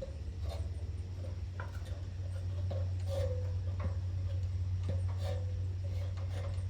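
Irregular light clicks and ticks with a few short squeaks, over a steady low hum.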